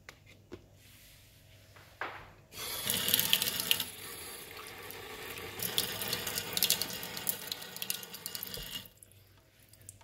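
Kitchen faucet running into a sink for about six seconds, starting a couple of seconds in and shut off near the end, after a light knock or two.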